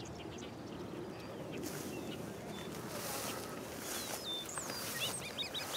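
Birds singing out in the open, a run of quick slurred whistled notes about four to five seconds in, over a steady outdoor wind hiss with a few brief louder gusts.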